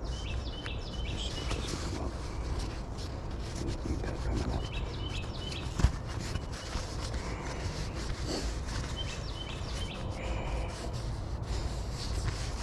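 Hands rubbing and handling wader fabric while a patch of repair tape is pressed and trimmed, with one sharp click about six seconds in. A bird sings a short high chirping phrase about every four seconds.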